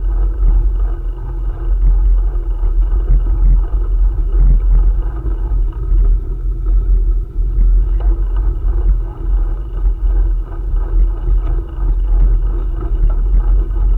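Continuous low, uneven rumble of wind buffeting the microphone during a bikejoring ride, with a steady faint hum of the bicycle rolling along the trail.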